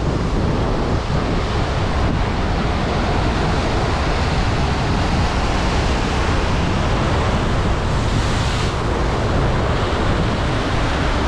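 Heavy ocean surf breaking and churning against a rocky cliff below, a steady rushing with a brief brighter hiss of spray about eight seconds in. Wind buffets the microphone throughout.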